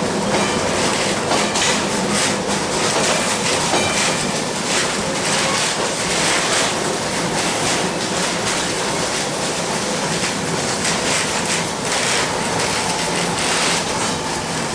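Inside a 1906 John Stephenson-built wooden streetcar running along its line: a steady rumble of wheels on the rails, with frequent clicks and rattles throughout.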